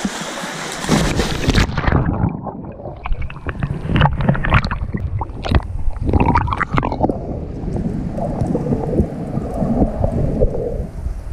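GoPro Hero 5 Black going from the air into the sea: a bright splashing hiss for about a second and a half, then the sound turns suddenly muffled underwater, with a run of clicks, knocks and gurgling that settles into a low rumble of moving water.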